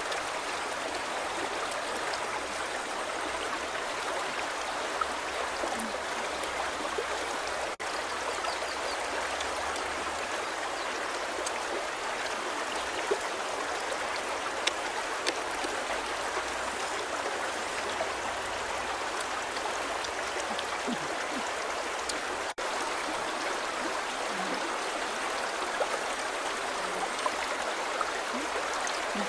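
Shallow river running steadily over rocks, a continuous rushing of water, with a few faint clicks.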